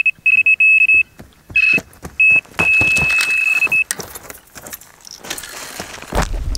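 Electronic carp-fishing bite alarm sounding a run. A high-pitched tone breaks into quick beeps for about two and a half seconds, then holds as one continuous tone for just over a second while the fish takes line. After it stops, footsteps crunch on the dry, stony shore.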